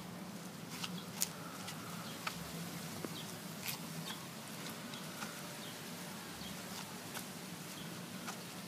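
Quiet background: a low steady hum with scattered light clicks and ticks.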